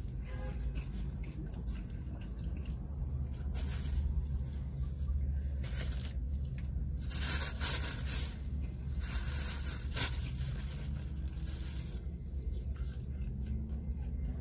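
Eating fried chicken: scattered crunches and the rustle and crinkle of paper napkins and wrapping, with a sharp click about ten seconds in, over a steady low hum in the car cabin.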